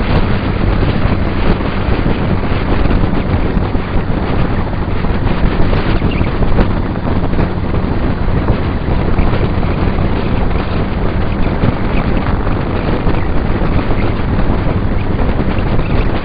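Heavy wind rush on the microphone of a camera mounted on a moving Suzuki Bandit 1200 motorcycle, with the bike's engine running as a steady drone underneath.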